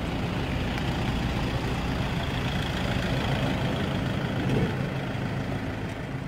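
A Toyota HiAce minibus engine running as the van drives past and pulls away, a little louder about four and a half seconds in.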